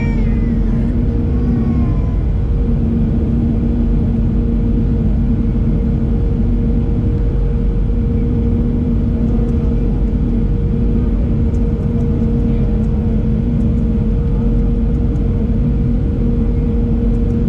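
Cabin noise of a Boeing 737-700's CFM56-7B24 turbofan engine and the airflow, heard from a window seat behind the wing during the descent to land: a loud, steady drone with a constant hum and a lower tone that drops in and out every second or two.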